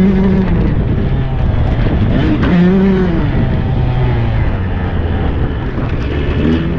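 Tuned Husqvarna 125 cc two-stroke dirt bike engine being ridden, picked up close at the handlebars. It revs high, eases off, revs up and falls again about two and a half seconds in, runs lower and steady for a few seconds, then picks up again at the end.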